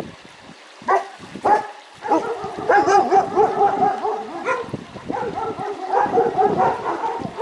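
A dog gives two short yelps, then keeps up a long, warbling whine for about five seconds, its pitch wobbling quickly up and down.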